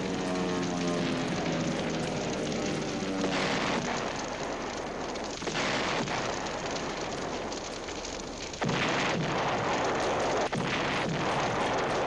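Explosions going off in a series of sudden blasts over a steady rushing noise, the loudest coming about eight and a half seconds in. A falling pitched whine fades out in the first couple of seconds.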